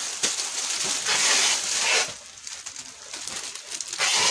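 Clear plastic packaging crinkling and rustling as a dress is pulled out of its bag. It is loudest in the first two seconds, quieter after, with another burst near the end.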